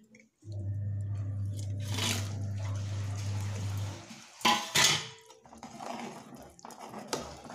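Fried pakoras tipped into a pot of simmering kadhi, with wet plops and splashes and a ladle knocking against the metal pot a couple of times. A steady low hum runs under the first few seconds and stops about four seconds in.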